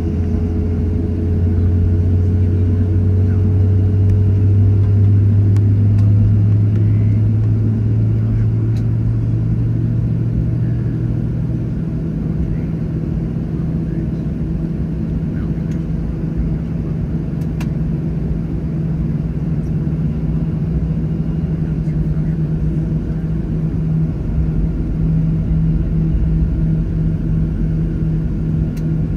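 Boeing 737-700's CFM56 jet engines running at taxi power, heard from inside the cabin as a steady low drone. A lower hum swells over the first few seconds and fades out about twelve seconds in, leaving a steady, slightly higher hum.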